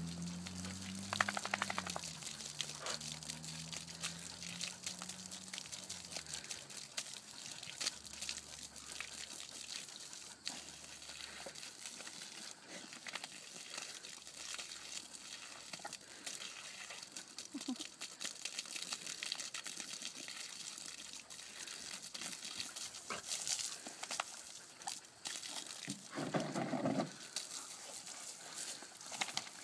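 Water from a garden hose spraying and pattering onto wet grass, mud and dogs, with small splashes and clicks as the dogs snap at the spray and tread through puddles. A brief louder noise comes about three seconds before the end.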